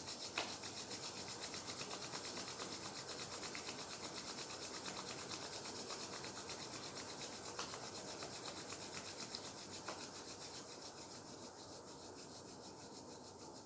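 Two palms rubbed briskly together, a dry swishing rasp in quick, even strokes of about four a second, easing off slightly near the end. The hands are being rubbed to build heat before being laid over the eyes.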